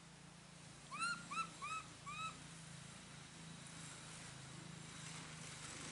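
Four short, high calls in quick succession about a second in, each rising then falling in pitch, from a small animal.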